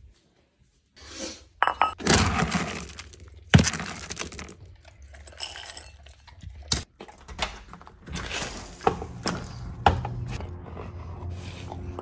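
Dry dog kibble scooped and poured into a dog bowl: a rattling pour with clinks and sharp knocks as the bowl and scoop are handled and the bowl is set down.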